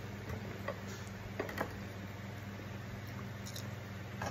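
A few soft, scattered clicks of a person eating rice and beef by hand and chewing, over a steady low hum.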